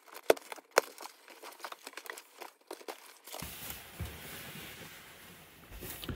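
Packing tape on a cardboard box being slit with a craft knife and torn, in a run of sharp clicks and rips. From about three and a half seconds in, the brown paper bags packed inside crinkle in a steady rustle.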